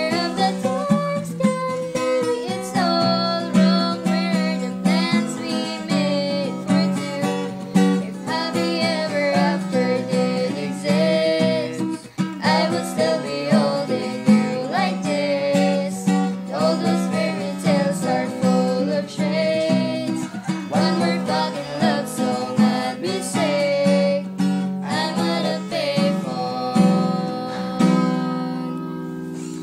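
Acoustic guitar-led music playing an instrumental passage, its last chord ringing out and fading near the end.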